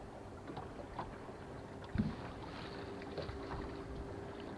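Bow-mounted electric trolling motor running with a faint steady hum over low water and wind noise around the boat, and a single thump about two seconds in.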